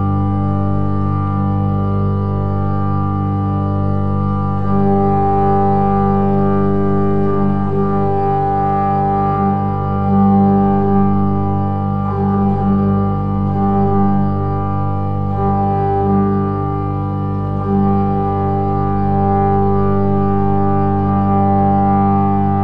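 Slow ambient music of long held, organ-like tones stacked into a steady chord, with higher notes swelling in about five seconds in and shifting now and then.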